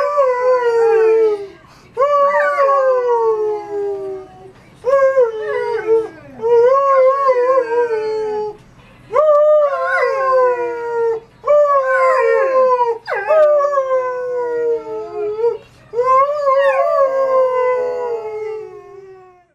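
Yellow Labrador retriever howling: about eight long howls in a row, each sliding down in pitch, with short breaks between them.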